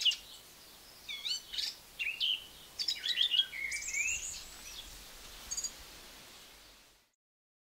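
Eurasian blackcap singing: short phrases of quick warbled and whistled notes that sweep up and down, over a light outdoor hiss. It all fades out to silence near the end.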